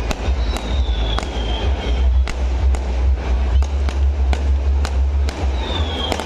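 Fireworks going off: a rapid, irregular series of sharp bangs and cracks over a constant deep rumble, with a high whistle falling in pitch twice, once near the start and once near the end.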